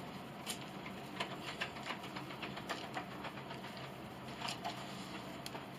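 Scattered faint clicks and light taps of wood being handled, irregular rather than rhythmic, over a low steady hum.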